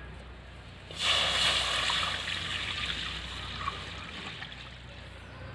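Water poured from a steel bowl into a steel kadhai (Indian wok). It starts abruptly about a second in, is loudest at first, and tapers off over the next few seconds.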